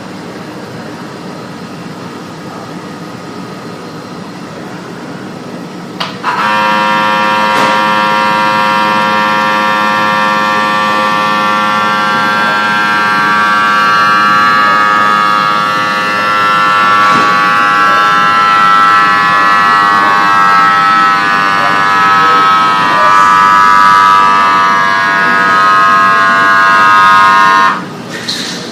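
A loud, steady horn-like alarm tone with many pitches at once. It comes on abruptly over a low background hum about six seconds in, holds for about twenty seconds, and cuts off suddenly near the end.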